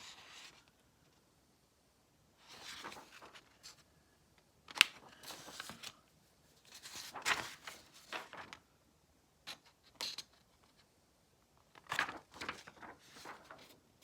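Paper rustling and crinkling in several short bursts, as printed sheets are handled and turned, with a sharp tap about five seconds in.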